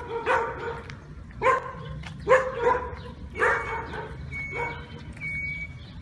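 Irish wolfhounds barking in play, a string of about six or seven short, uneven barks with the loudest near the middle.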